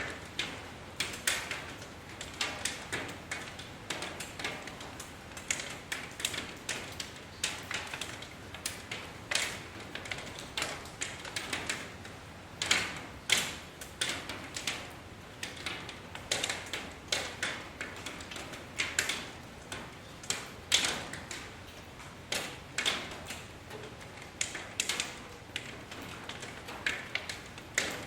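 Rain dripping: irregular sharp drops tapping on a hard surface, a few each second, over a faint steady patter.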